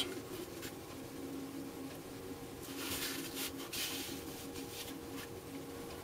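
Soft rustling and brushing as capacitors are handled and shifted on a cardboard work surface, twice near the middle, over a faint steady hum.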